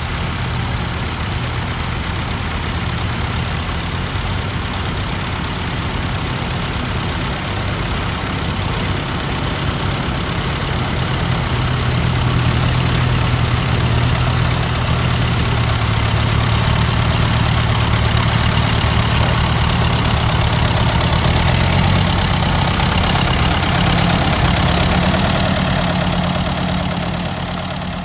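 Ferguson TE20 tractor's four-cylinder engine running steadily while pulling a plough, growing a little louder past the middle.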